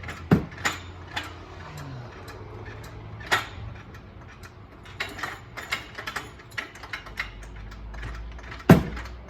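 Hand tools clicking and knocking on metal during a car brake job, in irregular ticks with a few louder clanks, the loudest near the end.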